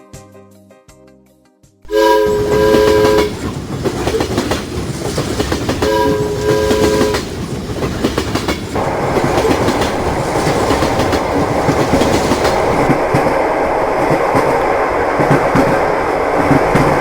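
A train horn sounds twice, each blast a chord of tones about a second long, about two and six seconds in, over the steady rumble and clatter of a train running on the rails. The first two seconds hold the quiet last notes of piano music.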